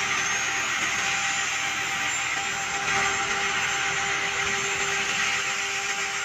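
Wire saw cutting concrete: a steady hissing whine with a few held tones, running evenly throughout.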